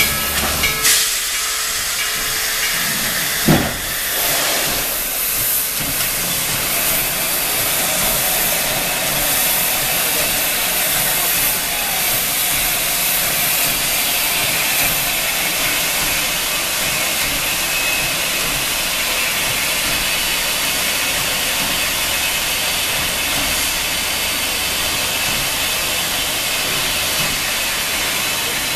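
Steam locomotive hissing steam in a steady, continuous rush, with a single sharp knock about three and a half seconds in.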